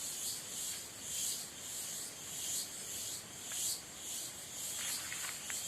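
Cicadas singing: a shrill, high buzzing chorus that swells and fades in regular pulses, over a low rustling noise.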